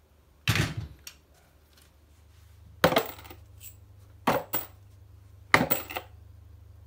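Small metal pieces dropping and clinking: four sharp metallic clatters with brief ringing, spaced about a second or more apart, the last two each a quick double hit.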